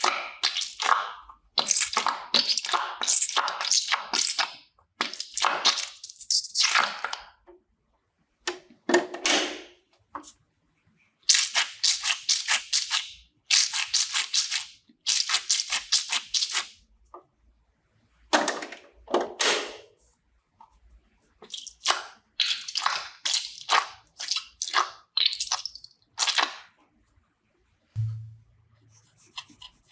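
ASMR slime squishing sounds: clusters of crisp crackling and clicking with short pauses between. A low hum comes in near the end.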